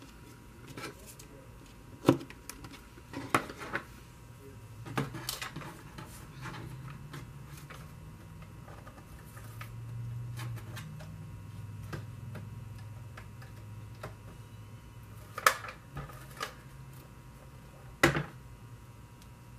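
Scattered sharp clicks and taps, about half a dozen, from craft tools and materials being handled and set down on a tabletop, over a faint low hum in the middle stretch.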